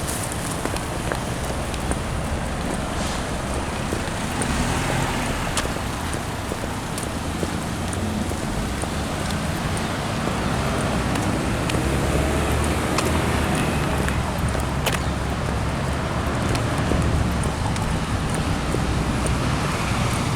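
Steady outdoor rumble of road traffic, with wind on the microphone; the low rumble grows louder about halfway through.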